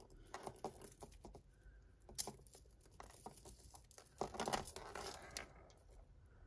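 Faint, irregular clicking and rattling of costume jewellery being handled: a pearl bead strand and metal chain are pulled and picked loose from a tangle of beads and earrings. The clicks come in small clusters, busiest about two seconds in and again around four to five seconds in.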